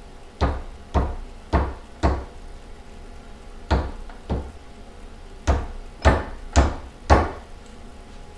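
About ten sharp hammer taps in three quick bursts, on a Dana 44 differential carrier as Torq Locker parts are tapped into place.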